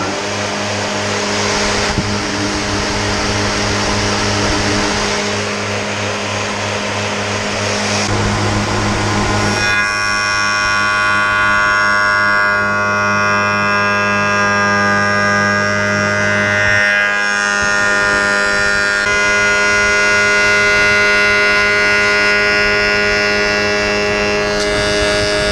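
Spindle moulder running at full speed with a steady hum. About ten seconds in, the cutter starts cutting a tenon on the end of a timber workpiece fed on a sliding table, and a louder, higher cutting whine is added.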